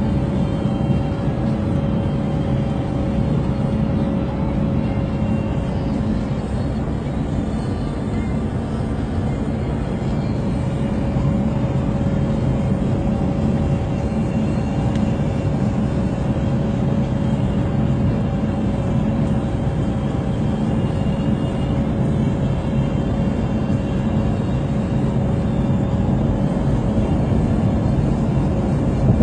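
Steady road noise from inside a car driving at motorway speed: a continuous low rumble of tyres and engine, with articulated lorries running close alongside and ahead, and a faint steady hum over it.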